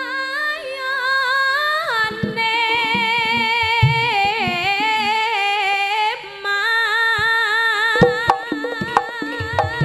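Javanese female pesinden (sinden) singing a slow, melismatic vocal line with wide vibrato through the stage PA, in long held notes with a short break partway through. Sharp drum strokes start up under the voice about eight seconds in.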